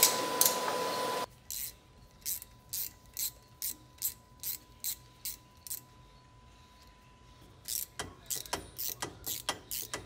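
Quarter-inch-drive ratchet with an 8 mm socket clicking as the drive shaft's flange bolts are backed out, about two clicks a second at first, then after a short pause a faster run of about four a second. The first second holds a steady hiss before the clicking starts.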